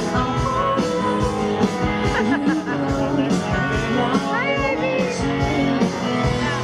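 Live rock band music with guitar, played loud.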